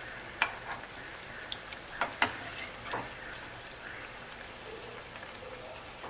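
Besan-coated potato vadas deep-frying in oil over medium-low heat, a steady sizzle. A few sharp clicks and taps, the clearest about half a second, two seconds and three seconds in, come as a perforated steel skimmer turns them in the kadhai.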